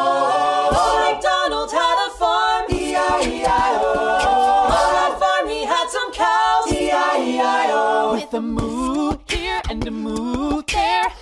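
Voices singing a children's song unaccompanied, with no instruments.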